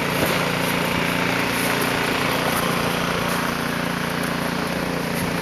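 A small engine running steadily at an even speed, with a constant hiss over it.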